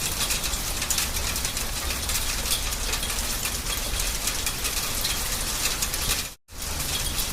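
Hail falling, a dense, rapid clatter of countless small clicks from ice pellets striking, with a low rumble beneath. It cuts out for a moment about six seconds in.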